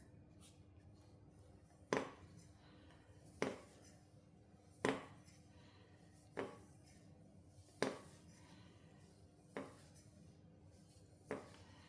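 Seven sharp clinks of hard metal parts being set down or knocked together while the engine is being taken apart, about one every one and a half seconds, over a faint steady hum.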